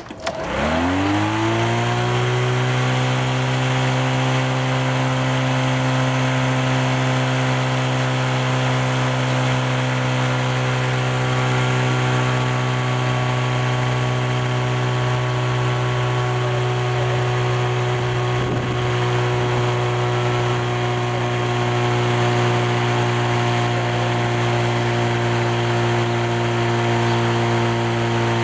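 Walk-behind lawnmower starting up, its pitch rising over about the first second as it comes up to speed, then running steadily.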